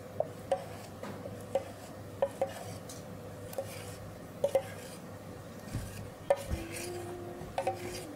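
A metal spoon clinking and scraping against a pan while thick chocolate sugar syrup is spooned and poured out onto a cake: irregular short clinks with a slight ring, about a dozen of them.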